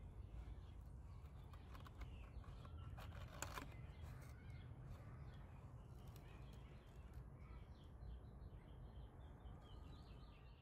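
Near-quiet background with faint bird chirps. About three seconds in there is a brief crackly paper rustle as the paper pop-up suitcase is opened.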